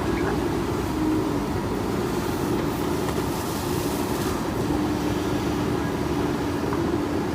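JCB 3DX backhoe loader's diesel engine running steadily, with a wavering hum over the engine noise.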